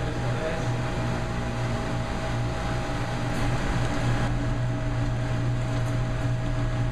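Steady low machine hum from etching equipment, with water running from a tap and splashing as an etched plate is rinsed and scrubbed.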